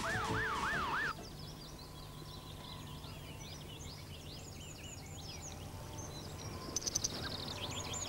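Fire engine siren wailing, rising and falling quickly, cutting off about a second in. Birds then chirp and twitter in a quiet countryside setting, with a few short bursts of insect chirping near the end.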